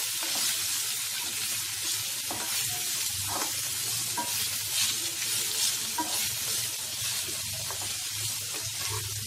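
Chopped spinach and onions frying in oil in a pan, stirred over and over with a wooden spatula: a steady sizzling hiss with the repeated scrape and rustle of the spatula strokes through the leaves.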